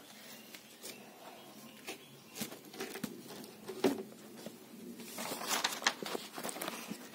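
Faint rustling of paper and scattered light clicks as a notebook is handled and its page turned. The rustling is busiest about five seconds in.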